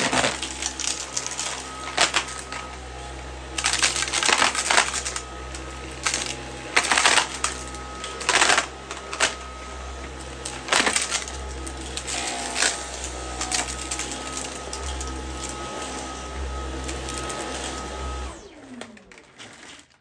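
Dyson V11 Outsize cordless stick vacuum running on shag carpet, with repeated bursts of rattling as debris is sucked up through the cleaner head and wand. Near the end it is switched off and the motor winds down.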